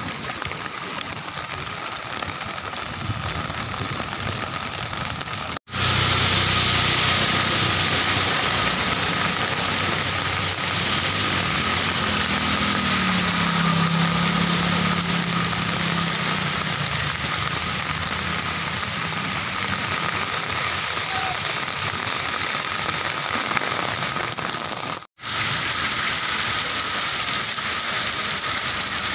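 Heavy rain falling on a flooded street, a steady hiss. About halfway through, a vehicle's engine passes close through the water, its pitch rising and then falling. The sound drops out briefly twice, at edits.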